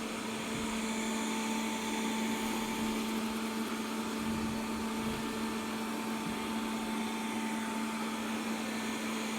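Robit V7S Pro robot vacuum cleaner running steadily as it cleans the floor, a constant motor hum with a whirring hiss of suction and brushes.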